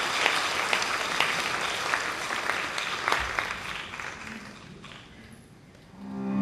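Audience applause that fades away over about five seconds. Music with steady low notes starts just before the end.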